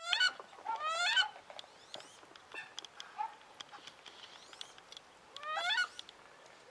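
Female wood duck giving loud, rising squealing calls three times: one right at the start, a longer one about a second in, and another near the end, with faint thin rising whistles between. The calls are those of an agitated hen.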